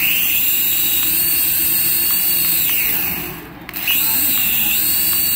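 Toy RC helicopter's small electric motors spinning its rotors, held in the hand: a high whine that rises in pitch about a second in and winds down near three seconds. It spins up again about a second later.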